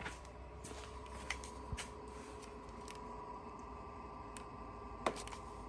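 Blower fan of a Chinese copy of a Truma Combi D6E combination heater running on low in its 900 W electric-only mode, a steady hum with a fixed whine in it. Several light clicks and taps sound over it at irregular intervals.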